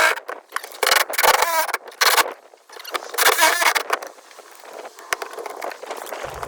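Rotted deck core and fiberglass being pried and scraped out by hand around a saw cut: a run of irregular scrapes, cracks and squeaks. A low rumble starts right at the end.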